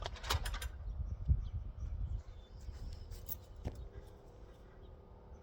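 Metal miter saw stand being handled: a quick run of sharp clicks and rattles at the start, then a few fainter clicks about three seconds in, over a low rumble that dies away after about two seconds.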